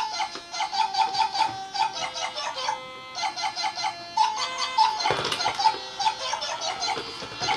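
Battery-powered musical crawl-ball toy playing a plinking electronic tune as it rolls itself across a wooden floor, with a short recorded giggle about five seconds in.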